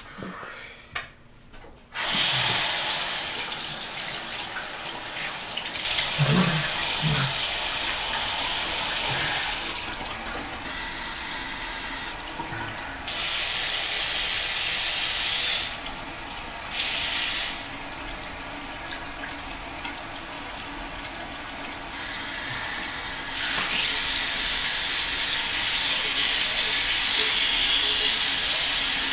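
Bathroom sink faucet running into the basin, turned on suddenly about two seconds in. The splashing sound shifts in level and brightness every few seconds.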